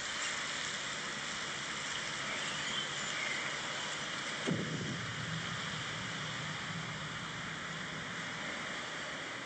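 Steady rushing hiss, with a low hum coming in about halfway through.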